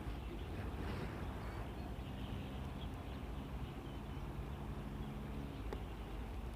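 Outdoor background noise, with a low steady hum that comes in about two seconds in and fades out near the end.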